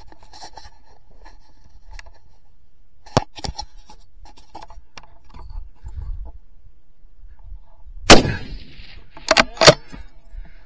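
A single rifle shot, loud and sharp, about eight seconds in, followed a little over a second later by two quick loud clacks. Faint clicks come about three seconds in.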